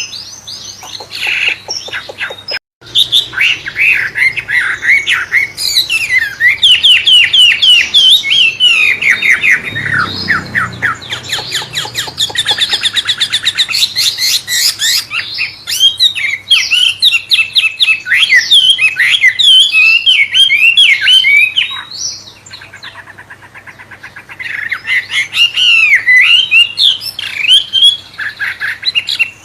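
A wambe songbird singing a long, varied, shama-like song: rapid chirps, sweeping whistled notes and fast rattling trills, with a quieter stretch about two-thirds of the way through.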